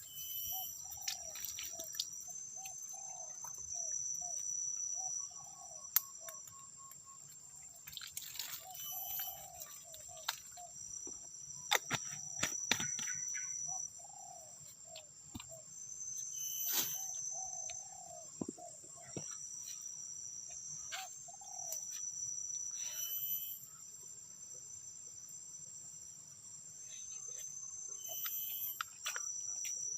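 Tropical forest ambience: insects holding a steady high-pitched drone, while a bird gives short repeated calls in runs every few seconds. Occasional sharp clicks or knocks cut through.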